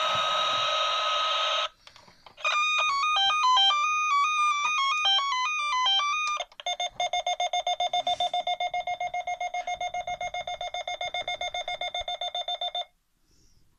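Fisher-Price Alpha Probe 325 toy space shuttle playing its electronic sound effects as its buttons are pressed. A hiss cuts off about two seconds in. After a short pause comes a run of electronic beeps stepping up and down in pitch, then a fast pulsing beep of about eight pulses a second, which stops near the end.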